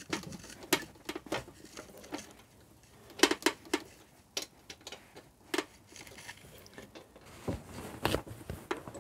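Scattered sharp clicks and knocks of hand work on a small two-stroke motorcycle engine as its cylinder barrel is worked loose, with a quick cluster of them about three seconds in and more near the end.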